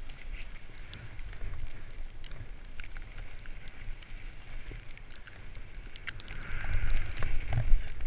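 Skis ploughing through deep powder snow, with loose snow hissing and ticking against the camera and a steady low wind rumble on the microphone. The snow noise grows louder near the end as the camera is buried in spray.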